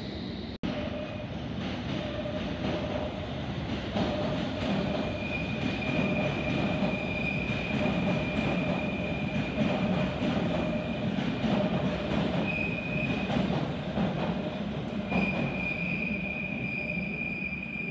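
London Underground train running through the station, a steady rumble with steel wheels squealing on the rails as one high, sustained tone from about four seconds in. The squeal gets louder near the end.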